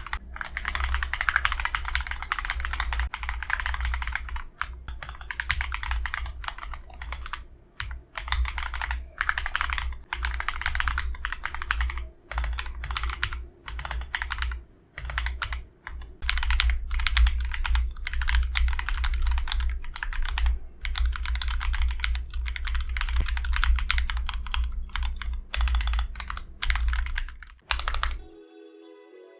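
Typing on an Akko ACR Pro Alice Plus acrylic-cased mechanical keyboard: a fast, steady clatter of keystrokes with short pauses. It stops about a second before the end, when soft music begins.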